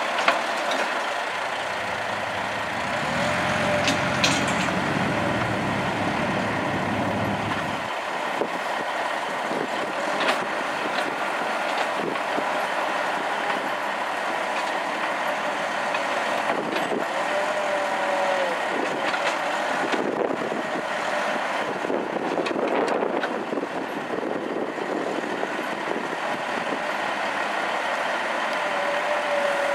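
Diesel engines at work: a CAT 416 backhoe loader's engine rising and falling in pitch several times as it works its loader bucket, over the running of a straight-piped dump truck diesel. A few sharp clanks of the bucket come near the start, around four seconds and around ten seconds.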